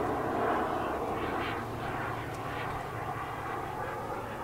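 Turbine engine of a model jet flying high overhead, heard from the ground as a steady, distant rush.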